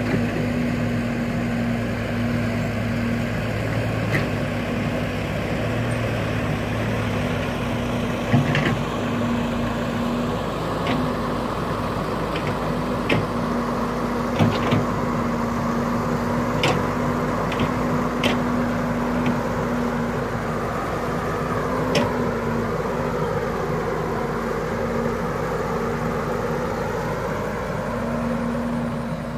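Diesel engines of a tracked excavator and a dump truck running steadily with a constant low hum. Several sharp clanks come through the middle, and a wavering whine sets in near the end.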